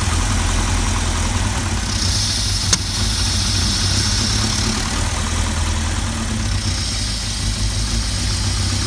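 Volvo engine idling roughly, its steady low rumble wavering slightly in level. A single sharp click sounds about three seconds in.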